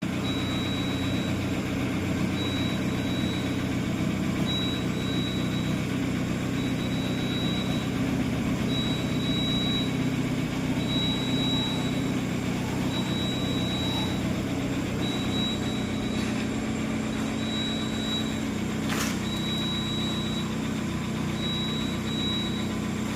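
Mahindra XUV700 engine idling steadily, with a high whine that keeps cutting in and out over the engine hum: the noise of a faulty alternator bearing. One sharp click near the end.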